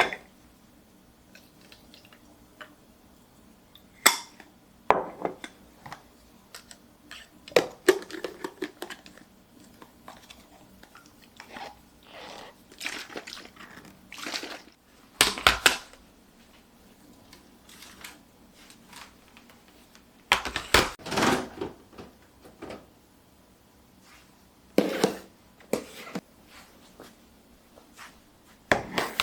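Intermittent household handling sounds: things being picked up, moved and set down, with sharp knocks and clatters and some rustling between them.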